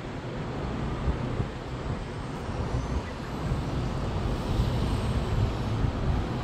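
Wind rumbling unevenly on the phone's microphone over a steady hiss of city traffic from the streets far below.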